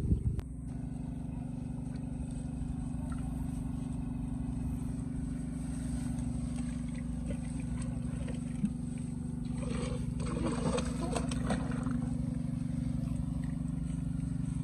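A motor engine running steadily with an even hum, with scratchy rustling and handling noise about ten seconds in.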